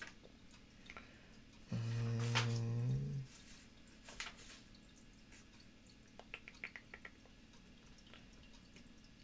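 A man's short closed-mouth hum, one steady low note lasting about a second and a half, about two seconds in. Around it are the soft rustles and light taps of a glossy catalog's pages being turned and handled.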